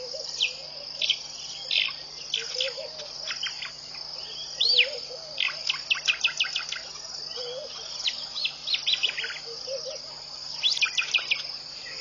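Birds singing in the morning: many short chirps, whistled sweeps and quick trill-like runs, with a steady high insect trill running underneath. A lower short call repeats about every two seconds.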